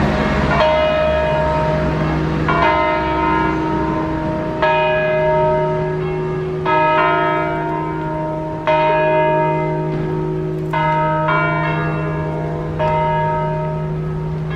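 Six swinging church bells, tuned to E-flat, ringing a full peal (distesa). A clang lands about every two seconds, each leaving a long ringing tail over a steady low hum from the bells.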